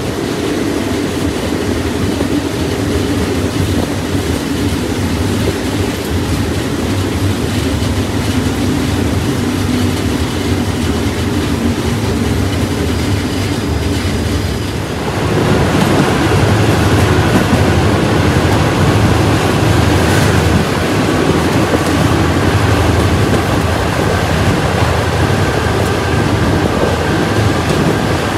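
Train wheels and running gear rumbling on the rails as a passenger train moves along. About halfway through the noise jumps louder and hissier and stays that way.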